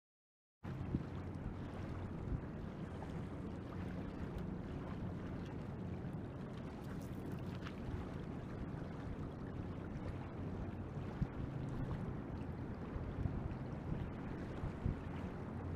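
Steady wind buffeting the microphone over rushing river water, a continuous low rumble with a faint hum in it, starting abruptly after a moment of silence.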